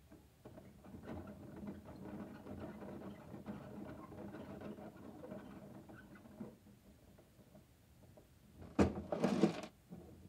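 Plastic parts of a Bruder toy garbage truck being worked by hand: a run of small rattles and clicks for several seconds, then a louder plastic clatter about nine seconds in as the body is lifted to tip.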